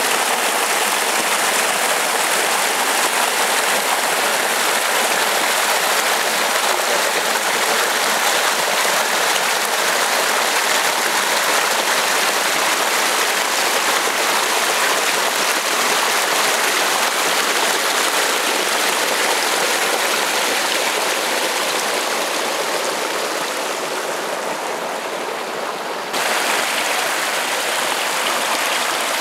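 Small creek rushing and splashing over rocks, a loud steady rush of water. It softens a little for a few seconds near the end, then comes back up abruptly.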